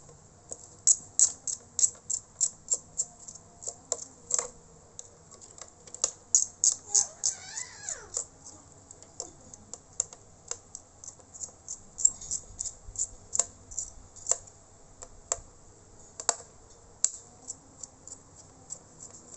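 Light, sharp clicks and ticks in quick irregular runs as a screwdriver backs out the small screws holding a laptop's heatsink and fan. A brief squeak with wavering pitch comes about seven seconds in.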